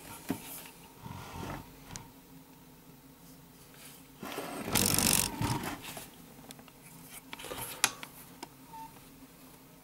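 Small metal clicks and scrapes from a valve spring compressor and tools being worked on an LS400's aluminium cylinder head, with a louder burst of rustling noise about four to five seconds in and a couple of sharp clicks near the end.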